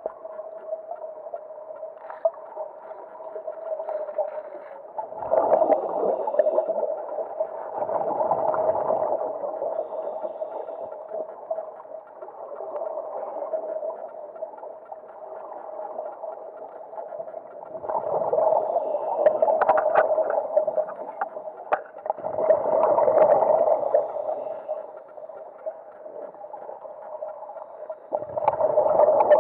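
Underwater sound of a scuba diver breathing: bursts of bubbling from exhaled air every few seconds over a steady hum.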